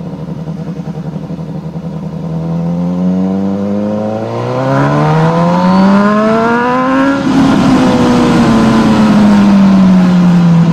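Motorcycle engine under way, running steadily at first, then accelerating with the pitch rising for about five seconds, then easing off with the pitch falling slowly.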